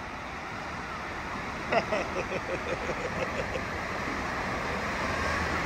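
Steady rush of water pouring off the ends of the water slides and spilling across the runout, growing slightly louder. About two seconds in, a quick run of short voice sounds cuts through it for a second or two.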